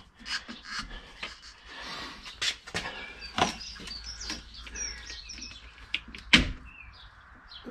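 Metal parts of a car's suspension strut top mount and its steel mounting plate being handled, giving scattered clicks and knocks, with one sharp knock about six seconds in. Birds chirp in the background.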